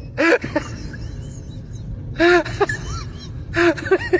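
Three short vocal cries or exclamations, with faint bird chirps in between over a steady outdoor background.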